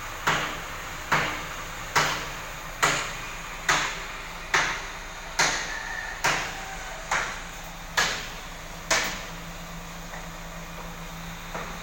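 A hammer striking at an even pace, about one blow a second, eleven blows in all, then stopping. A steady low hum goes on after the blows end.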